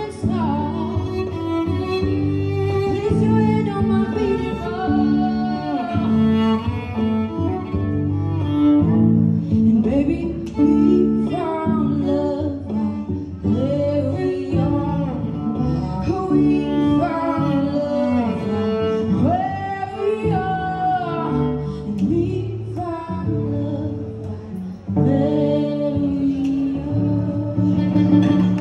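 A woman singing into a microphone through a small amplifier, accompanied by a bowed cello playing long held low notes under her melody.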